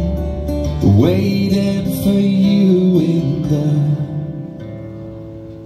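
Male voice singing over a strummed acoustic guitar, live; the sung line ends and the guitar fades to a quieter ring-out near the end.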